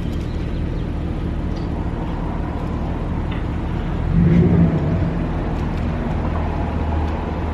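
Steady low engine hum of vehicles idling in an adjacent drive-through lane, swelling louder for about a second around the middle, with a few faint small clicks over it.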